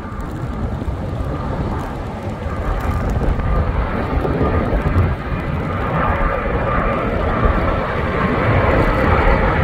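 Jet airliner, a Jetstar Airbus A320 on landing approach with its gear down, passing low with a steady engine roar that grows louder as it comes closer.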